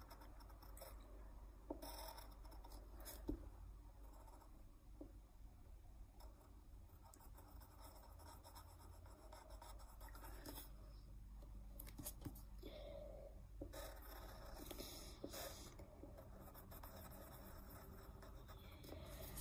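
Faint scratching of a pencil drawing on paper, in short strokes, with a few light taps.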